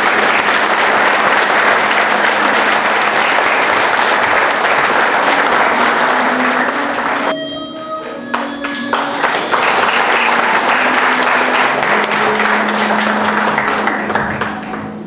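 Audience applauding, with music playing underneath. The clapping drops away about seven seconds in, leaving the music briefly, then swells again and tapers off near the end.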